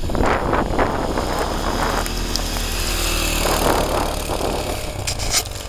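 Small off-road vehicle engine running steadily, with two surges of rushing noise, the first lasting a couple of seconds and the second around the four-second mark.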